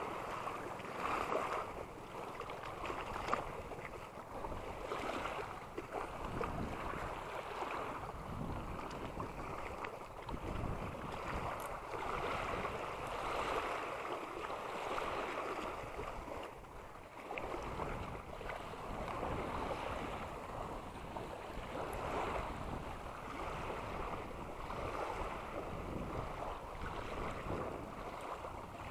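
Small waves lapping and breaking along the shoreline in a steady, swelling wash, with wind gusting on the microphone.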